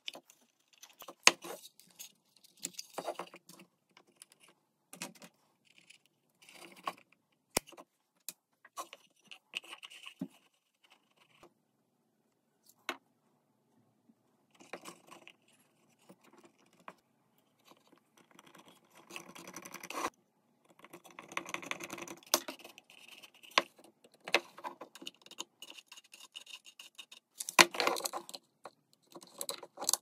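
Small wooden parts being handled: irregular clicks, taps and short scrapes, sparse at first and busier in the second half.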